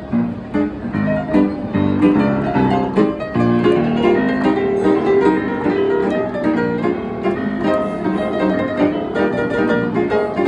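Upright piano played four-hands by two pianists: a continuous, busy stream of quick notes and chords across the low and middle range.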